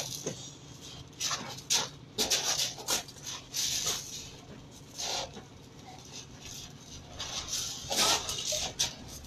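Two people sparring on gravel: irregular short bursts of quick exhalations and feet scuffing and crunching on gravel, the loudest cluster near the end.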